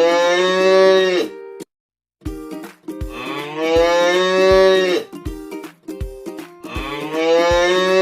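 A cow mooing: three long calls, each falling in pitch at the end, over background music with plucked notes and a steady beat.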